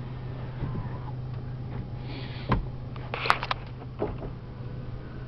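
Steady low hum inside an SUV's cabin, with a few scattered clicks and knocks, the sharpest about three seconds in.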